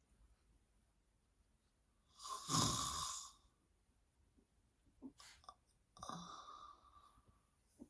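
A woman snoring while dozing upright: one loud snore lasting about a second, starting about two seconds in, then a fainter one about six seconds in, with a few faint clicks between.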